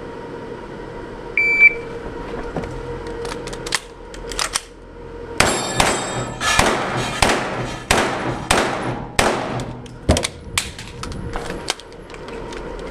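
Electronic shot-timer start beep, then a semi-automatic carbine firing about a dozen shots, singles and quick pairs, echoing in an indoor range.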